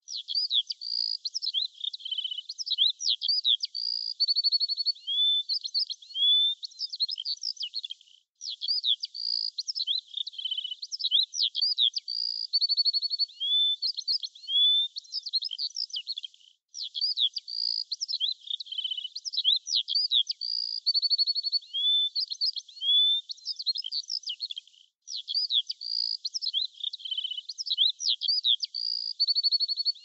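Small songbirds singing: a busy run of high chirps, slurred whistles and short rattling trills. The same stretch of song repeats about every eight seconds, with a brief break between repeats.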